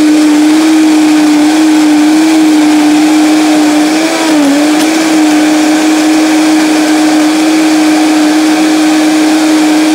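Vitamix blender motor running on high, blending a frozen-fruit smoothie: a loud, steady whine that wobbles slightly and dips briefly about four and a half seconds in.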